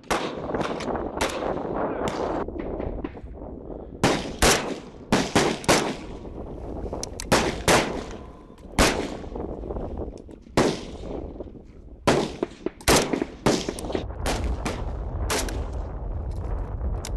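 Several Kalashnikov-pattern assault rifles on a firing range, firing single shots from a line of shooters. The shots come irregularly and sometimes overlap, each with a short echoing tail.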